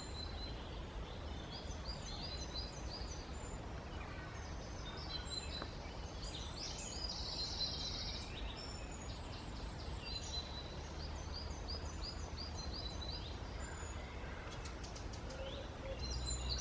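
Woodland birdsong: several small birds singing, with many short, quick chirping notes, over a steady low rumble.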